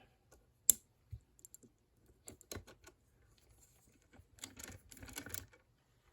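Small metal clicks and rattles from a Kwikset deadbolt and the Lishi KW1 2-in-1 pick being worked once the lock has been picked open: one sharp click under a second in, scattered lighter clicks, then a longer run of rattling clicks near the end.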